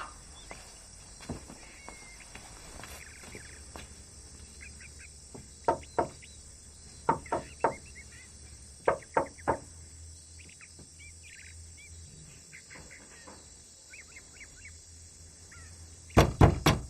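Quiet outdoor ambience with birds chirping faintly and a few scattered light taps. About a second before the end, a rapid run of loud knocks on a door begins.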